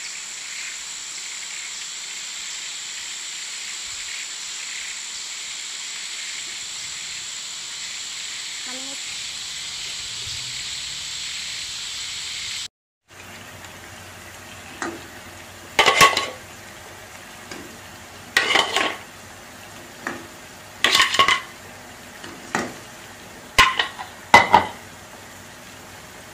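A steady high hiss with a thin high tone, then bubbling water in a pan, over which eggs lowered one by one on a plastic slotted spatula knock against the pan with about seven sharp clacks.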